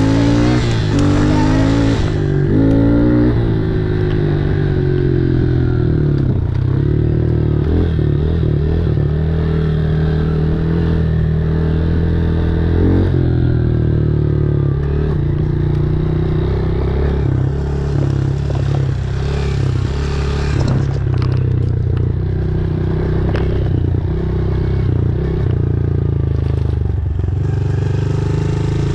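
Dirt bike engine running under the rider, its pitch rising several times in quick succession in the first few seconds, then running at a steadier note, rising and easing off with the throttle.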